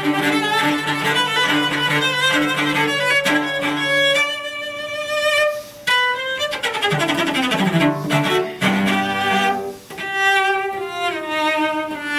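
Solo cello played with the bow. For about the first four seconds it plays a moving line over a held low note, then higher notes with brief breaks, and falling phrases in the second half.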